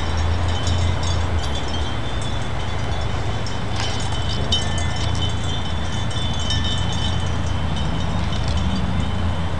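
Chime tubes of an outdoor sound installation, hung in trees, ringing in the wind: a cluster of high sustained tones with light tinkling strikes over a low steady rumble.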